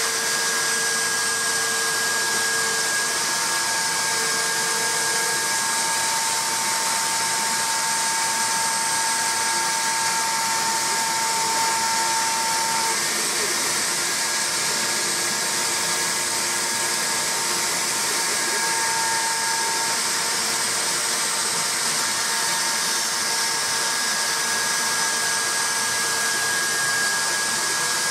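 KRMX01 CNC router spindle running steadily while its bit cuts the profile of a laminated wood grip blank, a constant machine whine with a few faint held tones over the cutting noise.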